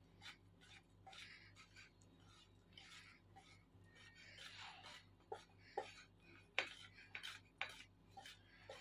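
Wire whisk stirring a thick, floury cake batter in a plastic bowl: faint scraping and rubbing, with light clicks of the whisk against the bowl that come more often in the second half.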